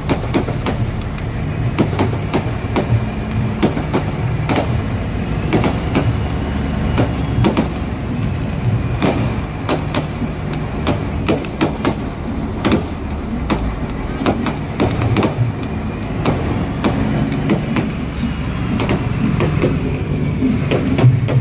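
Fireworks display: a rapid, irregular string of bangs and crackles from aerial shells bursting, several a second, over a steady low rumble.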